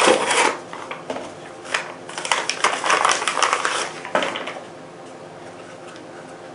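Plastic packaging bag crinkling and rustling as it is lifted out of a cardboard box and pulled off an item, in irregular runs of crackles that stop about four and a half seconds in.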